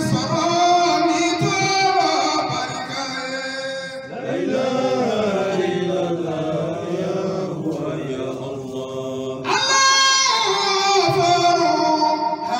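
Devotional chanting: a voice sings long, slowly wavering held notes, and a new, louder phrase comes in about ten seconds in.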